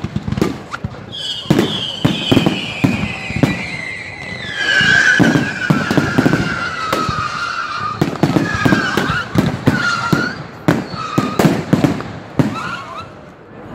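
Aerial firework shells bursting in quick succession: a run of sharp bangs and crackles, with long high whistles sliding slowly down in pitch during the first half.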